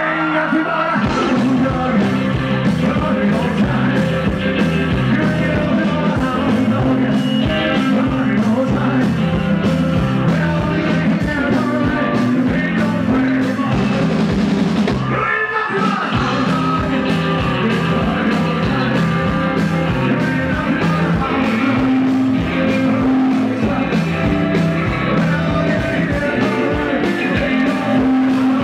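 Live rock and roll band playing with a singer over it: a walking upright-bass line under a steady drum beat. The band breaks off for a moment about halfway through, then comes straight back in.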